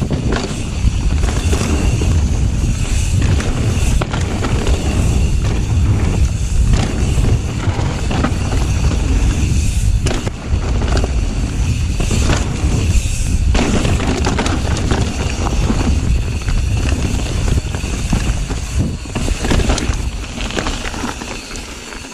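Mountain bike riding fast down a dirt trail: tyres rolling over the dirt, with the frame and drivetrain knocking and rattling over bumps and heavy wind rumble on the microphone. It gets quieter near the end as the bike rolls onto a gravel track.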